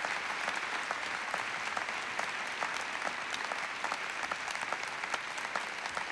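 Concert audience applauding at the end of a song: steady, dense clapping from many hands.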